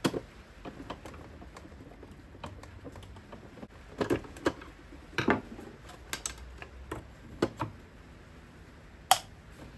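Irregular small clicks and taps of a screwdriver and bit set on a coffee machine's plastic casing while tri-wing screws are undone, with a sharper click a little before the end.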